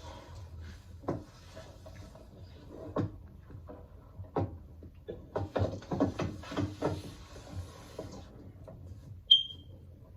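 A scatter of soft knocks and clicks, thickest between about five and seven seconds in, then a single short high beep near the end.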